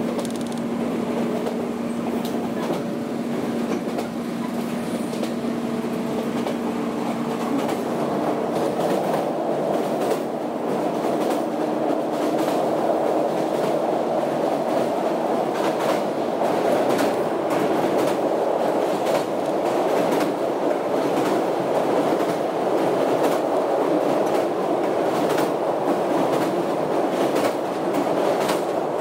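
Ride inside the motor car of a 115 series electric train at speed: the MT54 traction motors and running gear make a steady rumble with a hum that fades early on, and the wheels click over rail joints. The sound grows a little louder through the second half.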